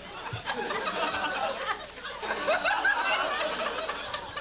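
Audience laughing and chuckling, many voices overlapping in scattered laughter.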